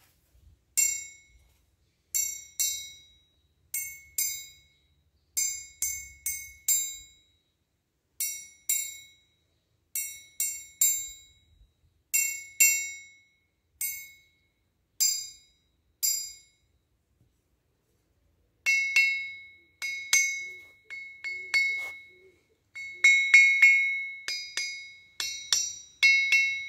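Steel ball bearings dropped onto the face of an 82 kg German anvil, each landing with a bright metallic ping and often a quick second bounce. From about two-thirds of the way in, a small cross-peen hammer is bounced on the face instead, giving louder ringing strikes in quick rattling runs. The lively bounce and clear ring are the sign of a hard, sound face with over 90% rebound.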